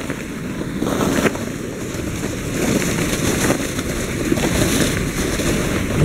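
Sled sliding over snow: a steady scraping, rumbling noise from the sled and the snow under it.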